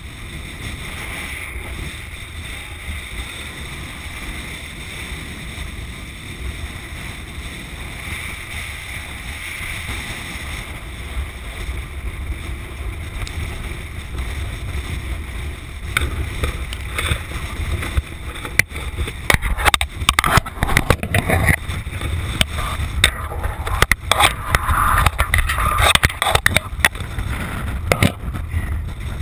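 Wind buffeting an action camera's microphone, a steady low rumble. From about the middle on, irregular knocks, scrapes and rustling come from handling close to the camera.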